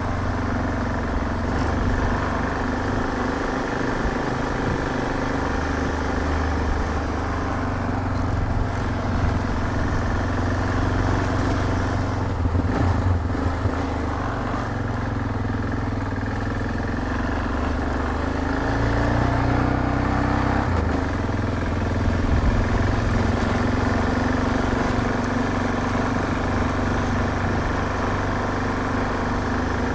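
Yamaha XT 660Z Ténéré's single-cylinder four-stroke engine running steadily while the motorcycle is ridden, its engine note shifting up and down several times with the throttle.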